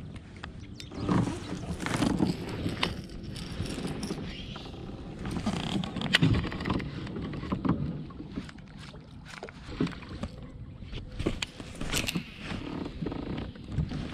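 Fishing kayak under way, water washing against its hull, with scattered knocks and clicks from gear being handled on board.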